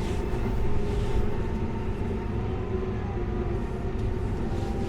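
Farm tractor engine running steadily while the tractor moves a fallen tree, a low rumble with a constant hum.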